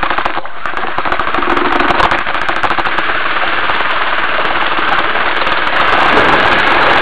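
Cordless drill spinning a whipper-snipper drive shaft and prop in a bucket of water: the motor and drive run with a fast rattling clatter while the water churns, getting louder about six seconds in.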